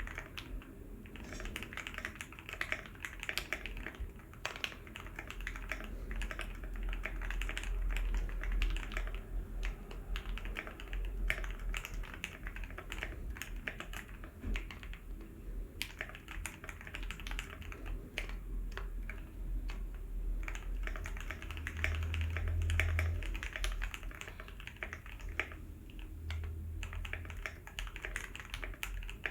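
Tofu65 mechanical keyboard with lubed and filmed Gateron Ink Black linear switches on a brass plate, with case and PCB foam, being typed on: a dense, continuous stream of keystroke clacks.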